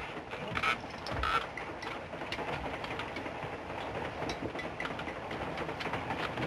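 Steady rattling clatter of a moving railway sleeping car, thick with fine ticks, with two brief squeaks in the first second and a half.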